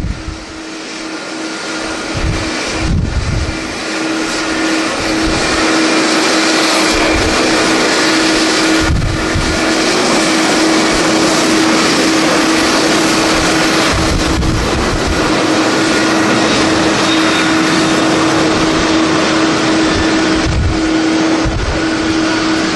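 Jet airliner engines, loud and steady, building over the first few seconds and then holding, with gusts of strong wind buffeting the microphone.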